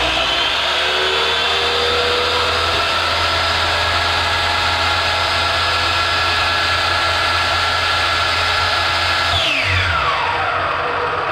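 Old electric chop saw's motor running at full speed with a steady high whine, then switched off about nine seconds in and winding down in pitch; right at the end it is switched on again and starts spinning up.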